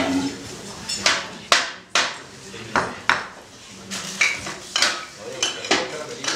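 Irregular metallic clanks and knocks, about ten sparse strikes with short ringing decays, played as free-improvised percussion on metal objects.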